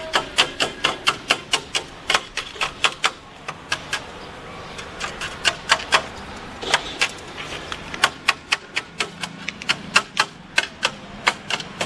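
Sharp metallic clicks and taps, irregular, several a second, from work on a chair welded out of motorcycle sprockets and roller chain.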